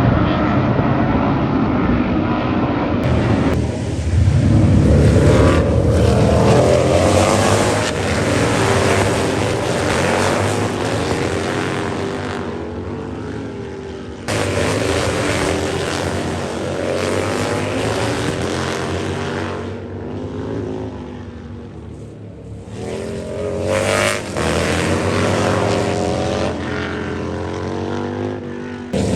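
Racing motorcycle engines passing at speed, pitch rising and falling through throttle and gear changes; these are the big V-twin bagger race bikes. The sound jumps abruptly a few times, as if short clips were cut together.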